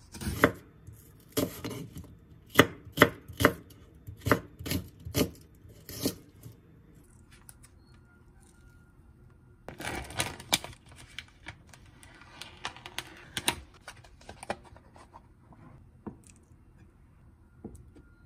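Chef's knife slicing through an onion and striking a wooden cutting board: about nine sharp chops over the first six seconds. About ten seconds in comes a crinkling rustle of plastic film being peeled off a tofu tray, followed by a few light clicks and handling sounds.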